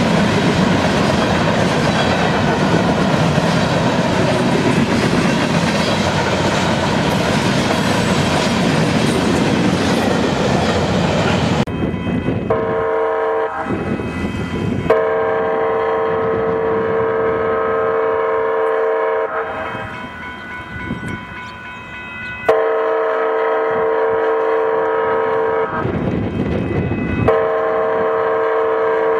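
Union Pacific freight train of covered hopper cars rolling past, a loud, steady rumble of wheels and cars. About twelve seconds in this gives way to a locomotive's multi-note air horn sounding three long blasts.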